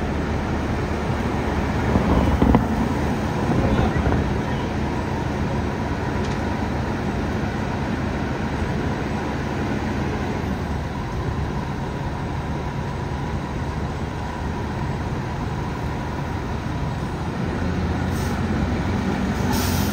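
Diesel engines of idling fire apparatus rumbling steadily, with the engine's rumble building near the end as the fire engine starts to pull out of the bay, over city street traffic.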